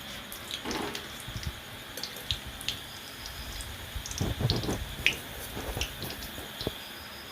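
Oil sizzling in the pan as fried egg pakoras are lifted out, with scattered clicks and knocks of the spoon against the pan, a louder cluster about four seconds in.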